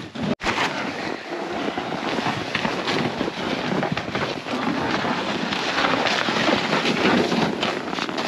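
Boots crunching through snow and a loaded sled scraping and sliding over the snowy trail, a steady crackly crunching.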